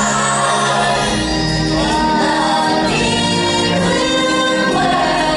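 Live stage musical: singers performing a song over backing music.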